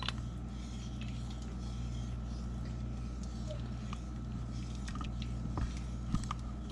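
Wooden spoon stirring thick tomato sauce with hog maw in a stainless steel Instant Pot insert: faint squishing, with a few light knocks of the spoon against the pot in the second half, over a steady low hum.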